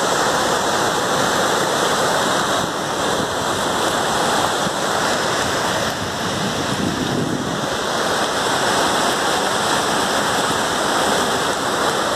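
Muddy floodwater rushing in a torrent and a swollen channel, a steady, loud wash of water noise that does not let up.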